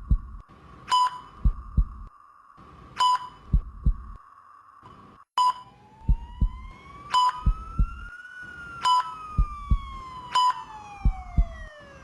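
Intensive-care soundscape: a patient monitor beeps at one high pitch every one and a half to two seconds, over low heartbeat thumps that often come in pairs. A slow siren-like tone rises in pitch and then falls in the second half.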